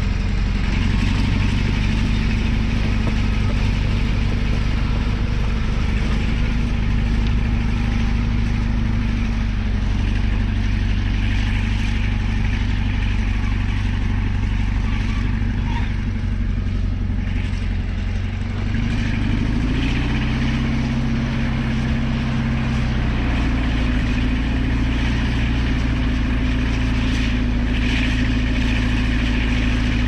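Caterpillar D11 bulldozer's diesel engine running steadily as the dozer pushes dirt, a deep, even drone. About two-thirds of the way through the engine note changes, shifting to a new pitch and settling.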